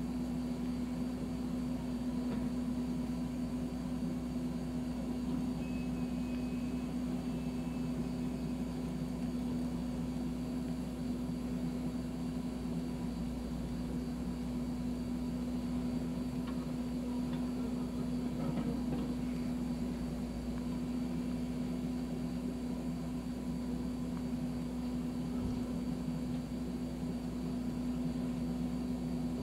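John Deere backhoe's diesel engine running at a steady speed, a constant low hum with no revving.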